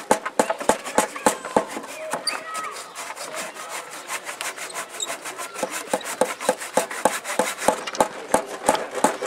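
Hand tools working timber on a workbench: a rapid, irregular run of sharp knocks on wood, several a second, with some rubbing between them.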